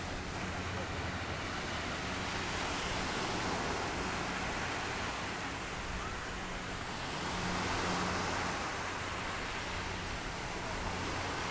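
Small surf breaking and washing up a sandy beach, the wash rising and falling every few seconds, over a faint steady low hum.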